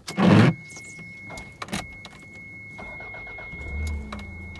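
1991 Toyota MR2 Turbo's 3S-GTE turbocharged four-cylinder started from cold after a week unused: a brief crank a little under three seconds in, then it catches and settles into a steady idle. A short loud rustle comes just after the start, and a thin steady high whine runs underneath.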